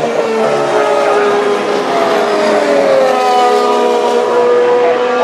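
Several Formula 1 cars' turbocharged V6 engines running at high revs as they pass on the circuit. Several engine notes sound at once, and one slides slowly down in pitch partway through.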